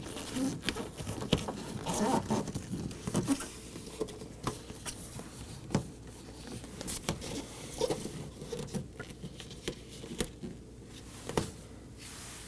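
Plastic door vapor barrier rustling and crinkling, with irregular small taps and clicks, as it is pressed by hand back onto its adhesive around the door.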